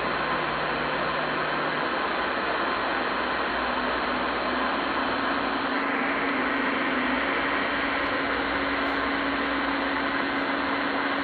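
Uniden PC-122XL CB radio on channel 38 lower sideband hissing with steady band static between transmissions. A faint low steady tone sounds through the hiss for the first couple of seconds, and another, slightly higher, comes in about four seconds in and holds.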